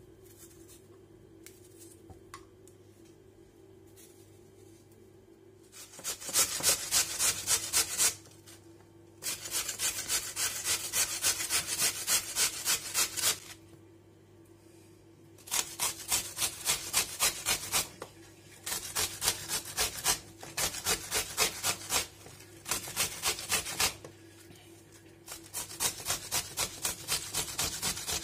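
Raw peeled potato being grated on a stainless-steel box grater. Starting about six seconds in, there are quick rasping strokes, about four to five a second, in a run of bursts with short pauses between them.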